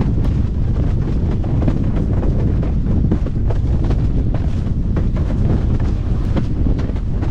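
Strong wind buffeting the microphone of a rig-mounted camera on a windsurfer planing at speed, with frequent irregular slaps of the board on the chop and rushing water.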